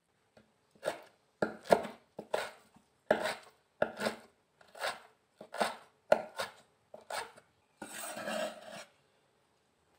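Cleaver chopping soaked wood ear mushrooms on a wooden cutting board: a dozen or so sharp chops, roughly two a second and unevenly spaced, followed about eight seconds in by a second-long scrape across the board.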